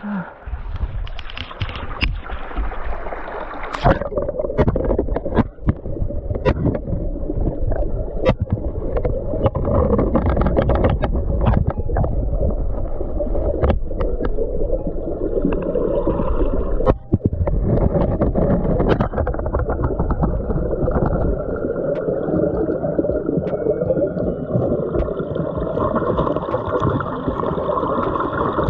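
River water gurgling and splashing right around the microphone, a loud continuous churning with frequent small knocks mixed in.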